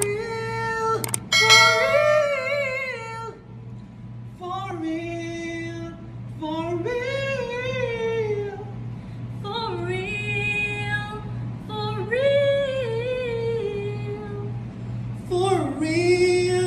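Voices singing a string of short, high sung phrases one after another, the pitch sliding and wavering on held notes, over a steady low pulsing beat.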